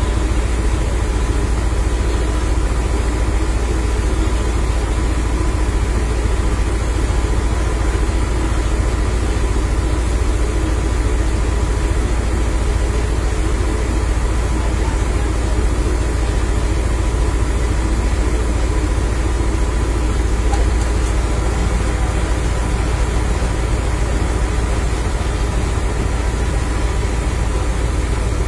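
Fire truck's engine running steadily with a constant low rumble and a faint steady whining tone.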